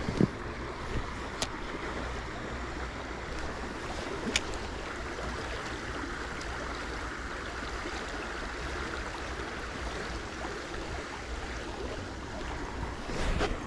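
Small stream running fast over riffles: a steady, even rushing of water, with two faint short clicks about a second and a half and four and a half seconds in.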